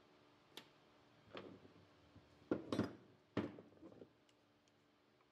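A handful of sharp clinks and knocks from metal fuel-rail line parts being handled while an old rubber injector hose is worked off the pipe end by hand. The loudest come in a quick cluster near the middle.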